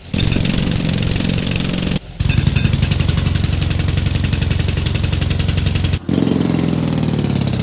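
A jackhammer recording digitally altered into three versions in turn: about two seconds processed to sound like a motorbike, then a slowed-down version with steady, rapid, even hammering strokes, then about six seconds in a version meant to sound like the jackhammer running out of power.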